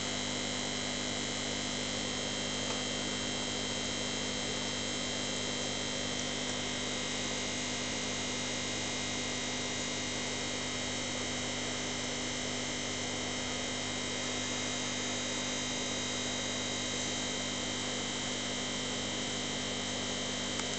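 Aquarium air pump running steadily to drive a sponge filter: an even electric hum with several held tones under a constant hiss.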